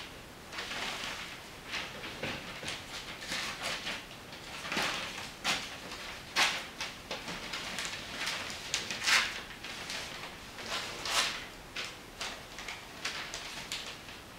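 Paper rustling and scissors snipping as pages of a magazine are handled and cut, in irregular bursts with a few louder rustles.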